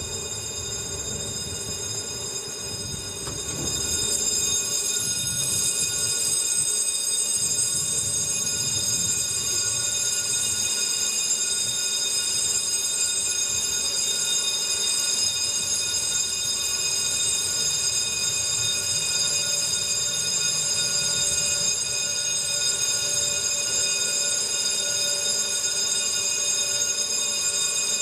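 Fabric hangar door's drive running as the door rolls up: a steady electric whine made of several fixed high tones over a low rumble, growing louder about four seconds in and then holding steady.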